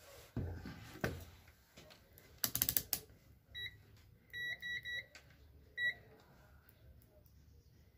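Handling knocks and a quick rattle of clicks, then a digital multimeter's continuity beeper giving short beeps, about five in all, as its probes touch points on the electric blanket controller's circuit board and find a closed connection.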